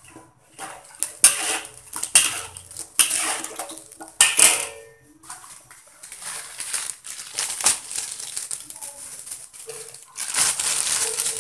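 Metal spatula stirring and scraping against the inside of a metal wok holding liquid curry, in repeated strokes with a few sharp clanks in the first half.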